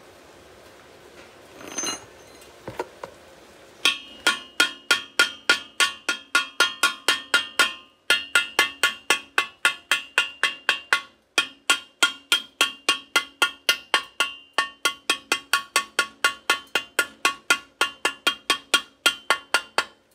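Chipping hammer tapping along the arc weld on thin galvanized steel pipe, knocking off slag. The rapid, even strikes come about three a second, with two brief pauses, and each strike makes the thin pipe ring.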